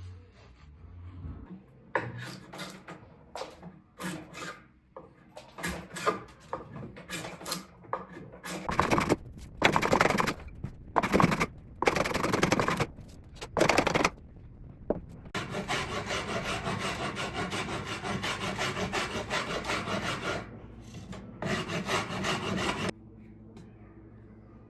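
Cricket bat wood being worked by hand with a file in scraping strokes. The strokes come in short separate groups at first, then in a fast, even run for several seconds, with a brief pause near the end of the run.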